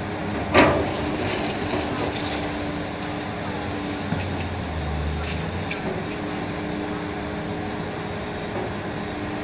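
Demolition excavator running while its hydraulic crusher jaws chew into a concrete building frame. One sharp crack comes about half a second in, over a steady engine-and-hydraulics drone with scattered clatter of falling debris, and a deeper rumble about four to five seconds in.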